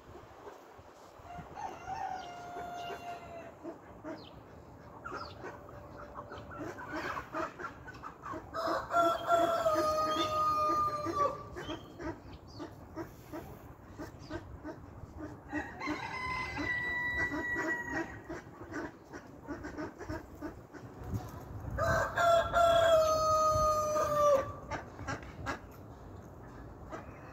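Rooster crowing four times, one long held crow every six or seven seconds, the first one faint. Softer clucking runs in between.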